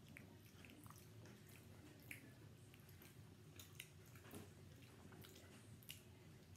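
Near silence, with faint scattered small clicks of a child chewing soft gummy candies.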